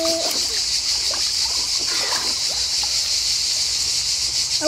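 Water sloshing and splashing in a plastic tub as small children move about in it, over a steady high-pitched chorus of insects.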